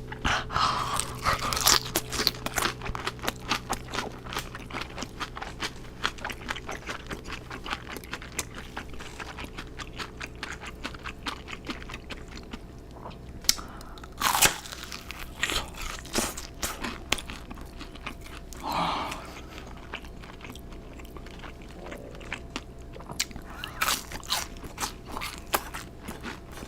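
Close-miked biting, crunching and chewing of crispy Korean old-style fried chicken: many irregular crunches, with a few louder bites along the way.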